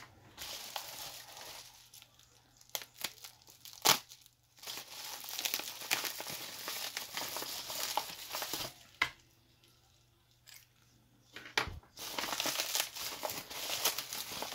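Plastic packaging being torn and crinkled open by hand in three long stretches, with a few sharp clicks or knocks in between.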